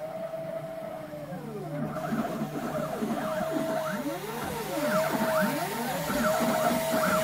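Stepper motors of a home-built wooden CNC router whining as the axes move, the pitch rising, holding and falling again with each move, several moves overlapping every second or two, over a steady low hum from the spindle. The machine is routing text into foam board.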